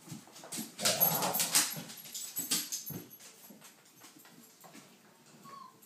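Airedale dogs in a wire pen: a loud rough burst about a second in, followed by a few sharp knocks. Near the end come short, high whimpers from the puppies.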